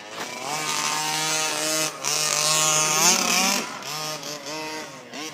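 Small two-stroke engine of a gas-powered RC baja buggy revving under the throttle. Its pitch climbs and falls back in the middle, then picks up again near the end.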